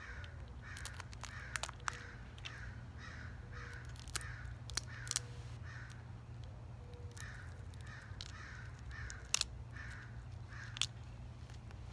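A crow cawing over and over, about two caws a second, in two runs with a short pause between them. Sharp cracks now and then as a cooked crawdad's shell is broken apart by hand, the loudest in the last few seconds.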